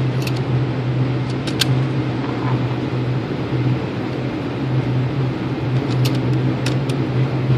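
Steady low hum of ventilation, with a few sharp clicks near the start, around one and a half seconds in and again around six seconds in, as 12-gauge slugs are loaded into a Kel-Tec KSG shotgun.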